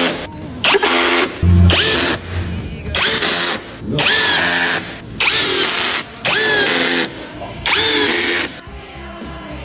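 Power drill run in about seven short bursts, each spinning up to a whine and winding down, over background music.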